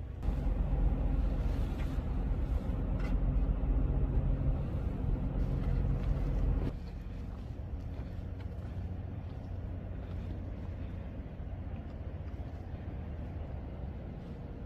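A low engine rumble, loud for the first six and a half seconds, then cutting off abruptly to a quieter steady low drone.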